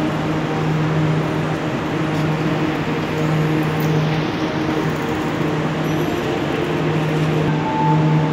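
Steady hum and rushing noise of a Buenos Aires Subte train standing at an underground platform with its doors open: a low hum with overtones over an even rush of noise. A higher steady tone comes in near the end.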